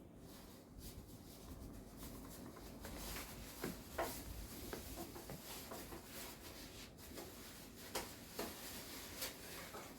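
Faint, scattered clicks and taps from hand work on a washing machine's display circuit board as a shorted micro switch is being replaced, the sharpest about four and eight seconds in.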